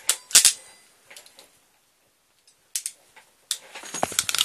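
Hand crimping tool handled and closed on a crimp-type PL259's ferrule on RG213 coax: a couple of loud sharp clicks at the start, a near-silent pause, then a quick run of clicks and small metal rattles near the end.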